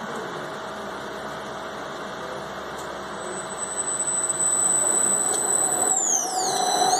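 Washer extractor's motor and belt-driven drum running. It grows louder about four seconds in as the drum speeds up. Near the end a high whine dips in pitch and rises back again.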